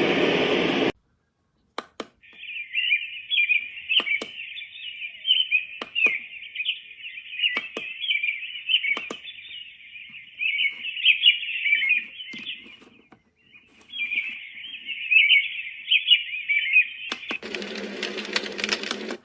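iDealSleep sound machine's speaker playing one of its nature tracks: a dense, high chirping, with a few sharp clicks in between and a short gap about two-thirds of the way through. Near the end it switches to a lower, rushing noise.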